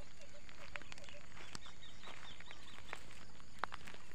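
A bird calling in series of short, evenly repeated chirps, about four a second, that come and go over a steady outdoor hiss. A few sharp clicks cut in, the loudest about three and a half seconds in.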